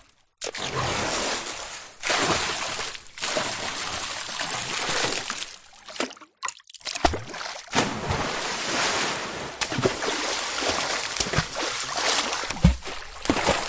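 A run of water splash sound effects, one after another: sloshing and splashing water broken by short silent gaps, with sharper splash impacts in the second half.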